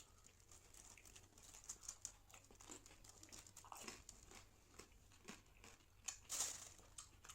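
Faint crunching and crackling of golgappa being eaten: crisp puri shells breaking between the teeth, with scattered small clicks and a louder crunch about six seconds in.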